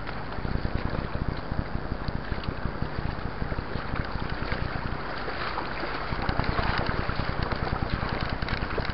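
Wind buffeting the microphone over the rush and splash of muddy floodwater as a mountain bike crosses a flooded dirt track. The water noise grows louder and brighter from about five to eight seconds in.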